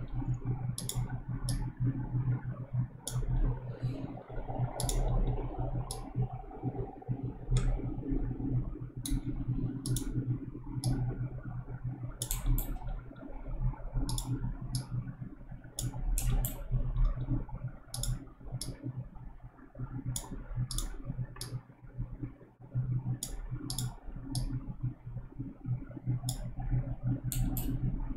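Computer mouse clicking irregularly, single clicks and quick pairs, while mesh vertices are selected and dragged. A steady low hum runs underneath.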